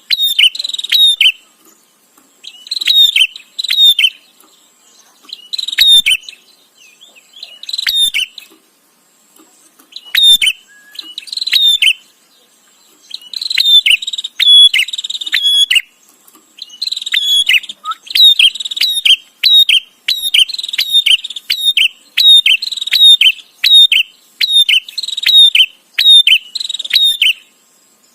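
A prinia (prenjak) calling in short bursts of rapid, clicky high notes. The bursts come every couple of seconds at first and run almost continuously from about halfway through.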